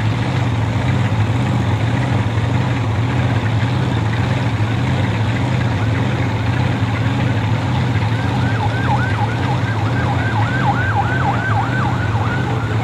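A siren yelping in quick repeated rising-and-falling sweeps, about three a second, starting about eight seconds in and stopping near the end, over a steady low engine hum.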